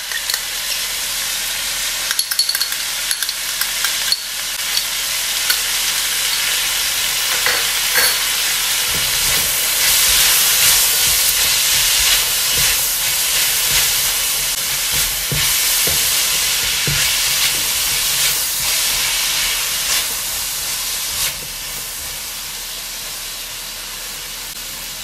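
Chopped vegetables sizzling as they are stir-fried in a hot wok, with a spatula scraping and tapping against the pan. The sizzle grows louder through the middle and eases a little near the end.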